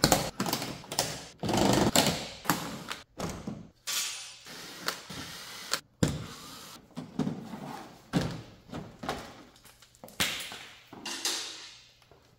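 Cordless drill-driver backing out the Torx screws of a car's plastic underbody panel, in short runs one after another, several cutting off abruptly.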